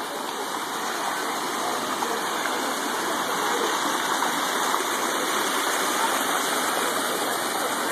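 Floodwater rushing down stone steps and across a path in a steady cascade.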